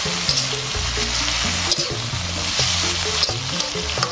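Bitter melon and anchovies sizzling in a metal wok with a little water added, as a slotted metal spatula stirs them and scrapes against the pan now and then. Background music with a steady low bass line plays underneath.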